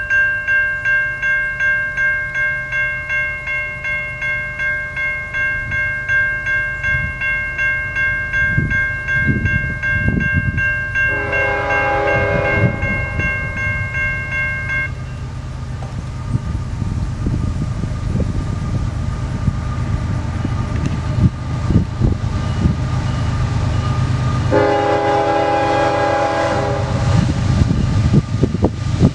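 Railroad grade crossing bell ringing steadily as the crossing activates, stopping about fifteen seconds in. Over it, the horn of an approaching CSX freight locomotive sounds a short blast about eleven seconds in and a longer one about twenty-four seconds in, with a third beginning at the very end, over a low rumble from the oncoming train that grows louder.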